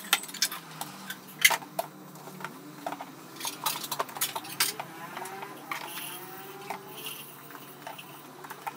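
Scattered knocks and clicks as books and small items are handled and set down on a wooden coffee table, over a low steady hum.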